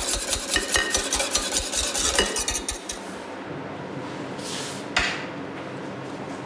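Wire whisk beating herb mayonnaise in a copper saucepan, rapid metal strokes against the pan that stop about three seconds in. A single light clink follows near the end.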